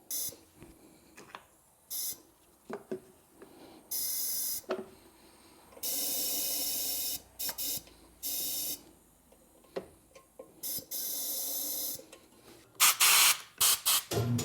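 Pneumatic tire changer letting out short bursts of compressed-air hiss, about eight times, with clicks and knocks in between as a tire is worked onto a small motorcycle rim. Near the end comes a louder quick run of hisses and knocks.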